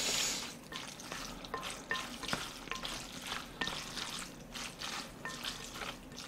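Chopsticks mixing thick black-bean sauce through noodles in a glass bowl: wet, sticky sliding and squelching with many small ticks, and now and then a light clink of the chopsticks against the glass.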